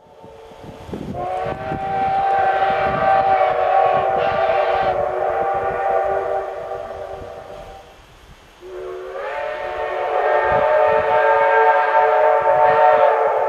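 A chime train whistle sounding two long blasts of several tones together, each about seven seconds; the second slides briefly up in pitch as it opens.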